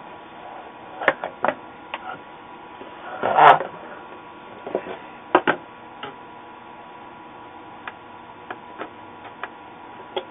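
Scattered clicks and knocks of a motherboard and soldering iron being handled on a workbench during capacitor desoldering and resoldering, with one longer, louder rustle and knock about three and a half seconds in; a faint steady hum underneath.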